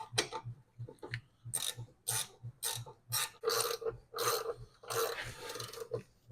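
A ratcheting gear wrench worked back and forth on a brake caliper bolt, a ratchet stroke about twice a second, getting louder after the first second and a half.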